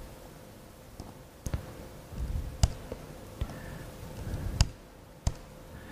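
About five sharp, irregularly spaced clicks of laptop keys being pressed, with a couple of soft low thumps between them over a faint steady hum.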